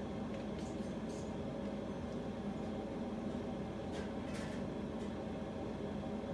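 A steady machine hum, like a running appliance motor or fan, with a few faint light clicks from handling things at the counter, about a second in and again about four seconds in.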